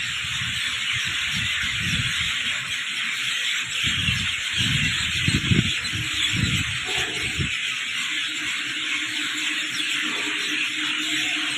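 Outdoor ambience: a steady hiss with irregular low rumbles and buffets, strongest about four to seven seconds in, and a faint low hum joining near the end.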